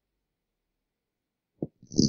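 An elderly woman snoring in her sleep. There is a pause between breaths, then a short snort about a second and a half in, and the next snore begins just before the end.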